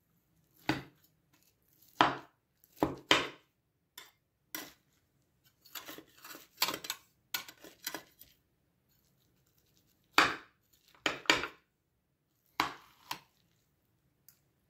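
Metal spatula cutting through a browned cauliflower gratin and scraping and knocking on the bottom of a glass baking dish. It makes a dozen or so short strokes, with a quicker run of scrapes in the middle.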